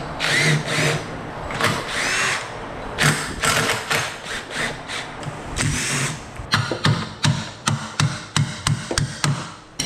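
Handheld power drill run in short trigger bursts, its motor pitch sweeping up and down with each burst. The bursts come quicker and shorter, about two or three a second, in the second half.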